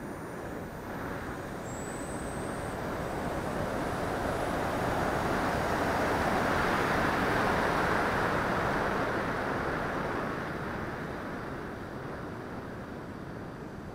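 Rushing air noise heard from on board a radio-controlled L-39 Albatros model jet in flight. It swells to a peak about seven seconds in, then eases off.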